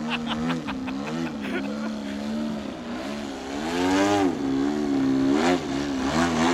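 Twin-cylinder DA120 two-stroke gas engine with canister exhausts, turning a carbon propeller on a 35% Edge 540 aerobatic RC plane in flight. The engine note swings up and down with the throttle and climbs sharply to a peak about four seconds in.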